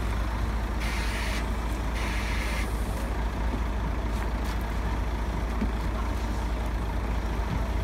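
Coach bus engine idling with a steady low rumble, and two short hisses about one and two seconds in.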